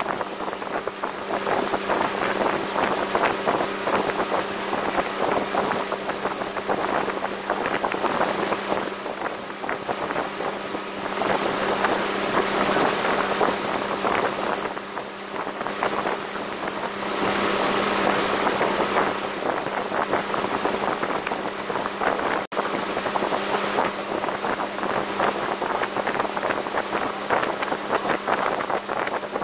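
1985 Sea Sprite Continental Mark II motorboat running at speed: a steady engine drone under the rush of wake water, with gusts of wind buffeting the microphone.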